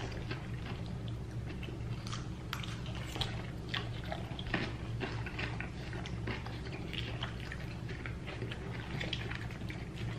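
Close-up chewing and crunching of salad: many small, irregular crisp crackles and wet mouth sounds, over a steady low hum.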